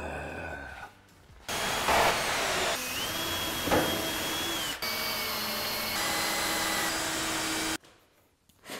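Woodworking power tools running in several short stretches spliced together: steady machine noise with a whine, changing abruptly a few times and cutting off suddenly near the end.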